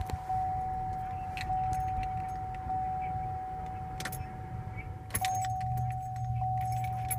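2014 GMC Acadia's warning chime sounding steadily, repeating about once a second, with a few sharp clicks and key jingles as the SUV is tried and fails to start. No engine cranking is heard.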